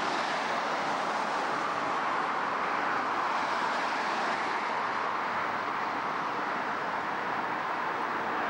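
Steady roadside traffic noise, a continuous wash of passing cars, picked up by a mid-1990s Panasonic NV-RX3 VHS-C camcorder's built-in microphone.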